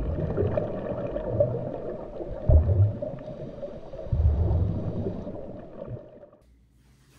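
Underwater-themed sound effects for an animated logo intro: a watery, bubbling bed with several deep booms, fading out about six and a half seconds in.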